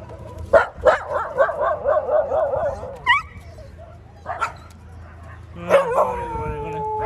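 Street dogs barking and yelping in an agitated commotion, with a fast-wavering cry early on and a long, steady howl starting about six seconds in.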